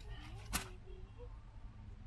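A wire bird cage covered with a towel being handled in a car: one sharp click about half a second in, over a low steady hum.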